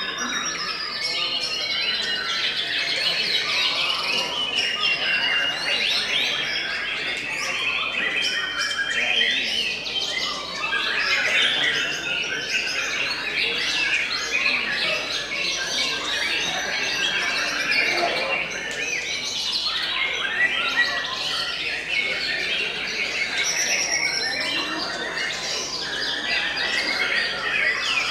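White-rumped shamas singing, several at once: a dense, unbroken mix of whistles, fast chirping runs and harsh notes.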